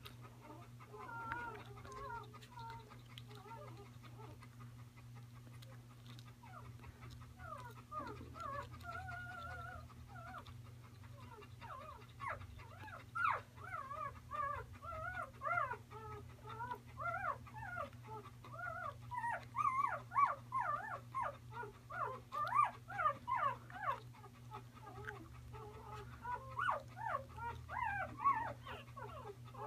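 Newborn Bernese mountain dog puppy whimpering and squeaking in a long run of short, wavering high-pitched cries, faint at first, then coming faster and louder partway through.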